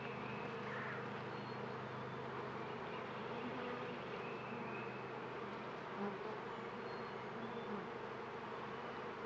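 Honeybees buzzing in an open Langstroth hive: many wings together make an even, steady hum, the sound of a calm colony.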